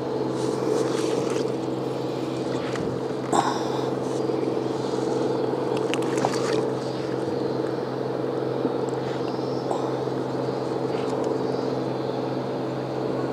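A boat engine running steadily, a low even hum with no change in speed. A couple of brief sharp clicks stand out over it, the clearest about three seconds in.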